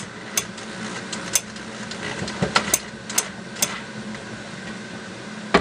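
A steady mechanical hum with scattered sharp clicks and taps, several in quick succession in the middle and a louder knock at the very end.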